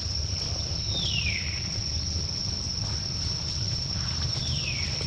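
Steady high-pitched drone of insects, over a low steady rumble, with two short falling calls about a second in and near the end.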